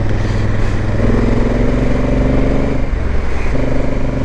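Motorcycle engine running while riding along, with the engine note shifting about a second in and dropping off briefly around three seconds in before picking up again.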